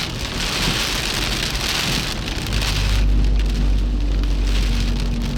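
Heavy rain drumming on a car, steady and loud. About halfway through a deep low rumble comes in and holds while the hiss of the rain falls away.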